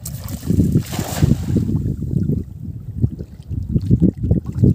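Wind buffeting the microphone in gusts, with a splashing hiss peaking about a second in as a weighted cast net lands on the river and sinks.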